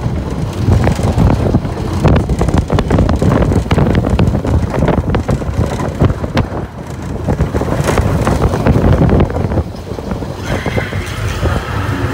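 Steel roller coaster train running along its track: a steady loud rumble of the wheels with quick clatter, and wind buffeting the microphone. The rumble eases a little near the end.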